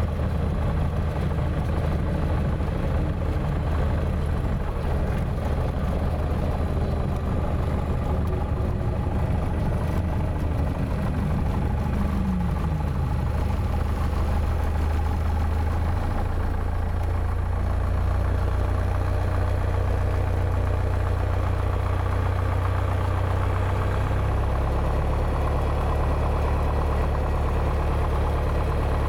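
Piper Archer II's four-cylinder Lycoming engine and propeller running steadily at low power, heard inside the cockpit during the landing rollout and taxi. A short falling whine comes partway through.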